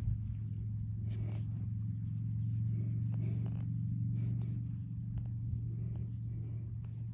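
A steady low mechanical hum, like an engine running, with a few faint rustles over it.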